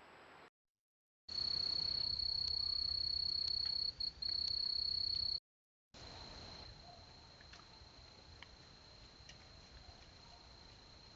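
Insects trilling in one steady high-pitched note, loud in one clip and fainter in the next, over faint hiss and a few soft clicks.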